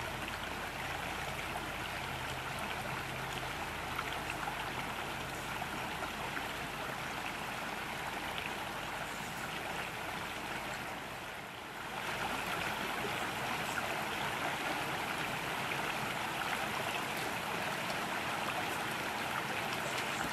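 A small mountain brook flowing over rocks, giving a steady rushing, babbling sound. A little over halfway through it dips briefly and then comes back slightly louder.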